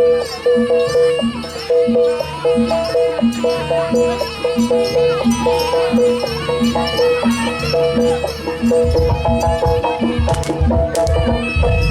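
Jaranan (kuda lumping) ensemble music, with a quick repeating two-note metallic figure over steady drumming. Heavier, deeper drumming comes in about three-quarters of the way through, and two sharp cracks are heard near the end.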